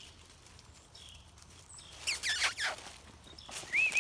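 Footsteps crunching through dry leaf litter and brush scraping past, starting about two seconds in, with a short rising squeak near the end.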